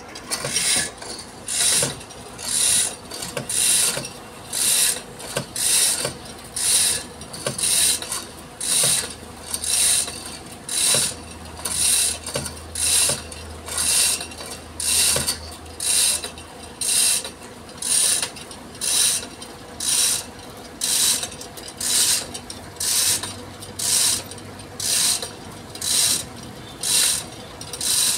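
Manual chain hoist being worked to lift a wooden fishing boat, its chain rasping through the block in a steady rhythm of short strokes, a little faster than one a second.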